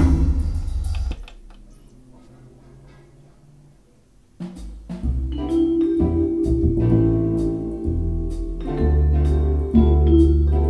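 Music playing from a Nakamichi MB-4S CD player. A loud passage dies away about a second in, leaving a quiet stretch, and about four seconds in a different track starts with a steady bass line.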